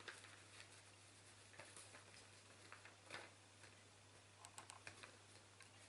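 Near silence: a few faint ticks and light clicks as hands handle a paper craft fish and fit a paper clip to its edge, over a low steady hum.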